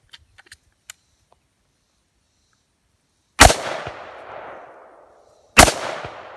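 Two AR-15-style rifle shots about two seconds apart, each followed by a long echo that fades over a second or so. A few faint clicks come in the first second.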